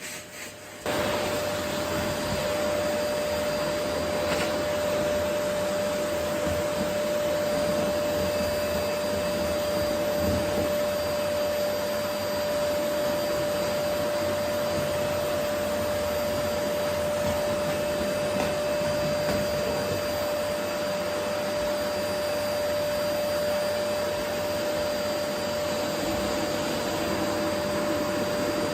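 Vacuum cleaner running steadily: an even rushing noise with a steady whine. It cuts in abruptly about a second in.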